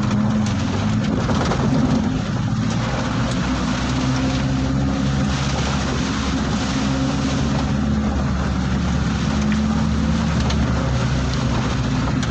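A motor vehicle's engine running at a steady low hum, under a constant hiss of rain and wind.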